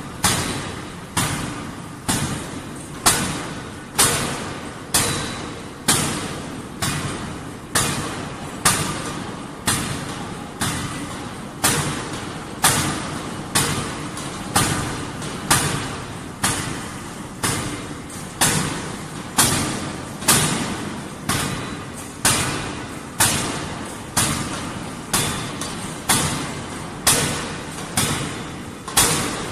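Fully hydraulic forging hammer (DY4ZD hydraulic power head) striking a red-hot billet on the anvil in a steady rhythm, a little faster than one blow a second. Each blow is a sharp bang with a short ringing decay, over a continuous background of machinery.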